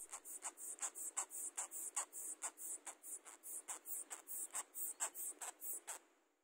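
Rapid scratching of a baby sugar glider's claws on a cloth as it crawls, about three short scrapes a second, stopping near the end.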